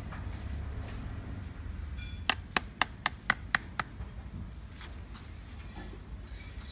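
A quick run of seven sharp knocks, about four a second, over a low steady rumble.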